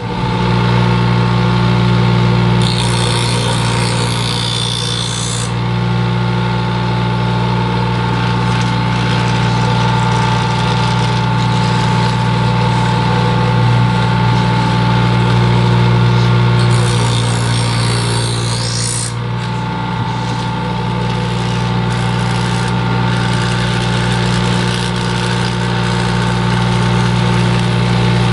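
Electric sharpening machine running with a steady hum while a single-bevel scissor blade is sharpened. Twice, about three seconds in and again near seventeen seconds, a hissing grind rises over the hum for two to three seconds as the blade edge is put to the abrasive.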